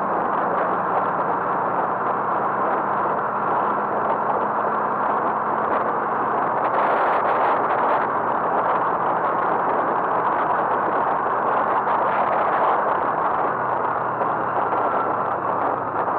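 Steady engine hum and rushing road noise of a moving road vehicle, unchanging throughout.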